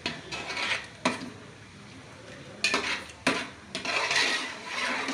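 A metal spoon stirring a thick prawn masala in a metal cooking pot, scraping along the pot and knocking against its sides several times.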